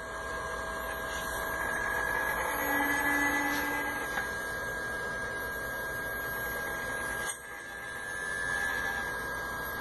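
Direct drive motors of a DD150 German equatorial mount whining with steady high tones as it slews fast across the sky. A brief low tone joins in about three seconds in, and a sharp click comes about seven seconds in, after which the sound drops.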